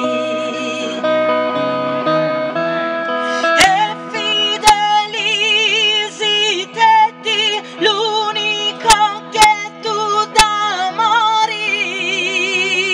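A woman sings a Sardinian folk melody with strong vibrato and quick ornamented note changes, over steady held accompaniment chords.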